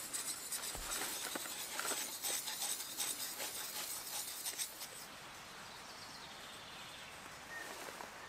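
A hand-held sharpening stone scraping along the steel blade of an old knife in quick, irregular strokes, which stop about five seconds in.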